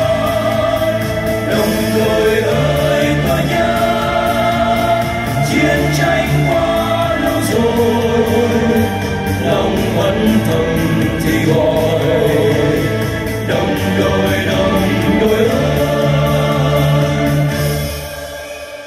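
Amplified male vocal quartet singing long held, wordless harmonies over an instrumental backing. The sound drops away near the end.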